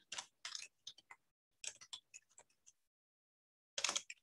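Faint computer-keyboard typing: quick runs of key clicks, a short pause around three seconds in, then a short louder sound near the end.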